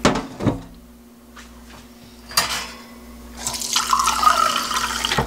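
A couple of knocks from a metal pot in a stainless-steel sink, then a kitchen faucet running. About three and a half seconds in, water pours into a glass cup, filling it.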